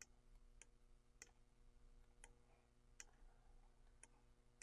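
Near silence with about half a dozen faint, sharp computer-mouse clicks at uneven intervals.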